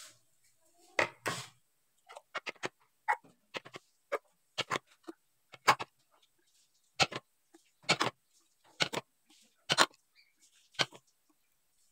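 Steel measuring cup and plastic cup clinking and tapping against ceramic and glass bowls while orange juice is scooped and poured: short, irregular clicks, about two or three a second.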